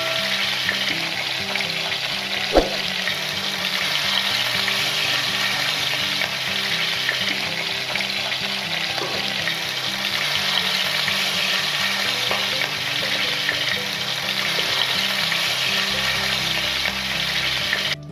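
Pieces of fish shallow-frying in hot oil in a nonstick wok, a steady dense sizzle, with one sharp knock about two and a half seconds in.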